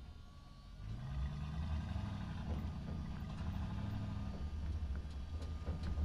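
Truck engine while driving: about a second in it gets louder and rises in pitch as it accelerates, then runs on steadily.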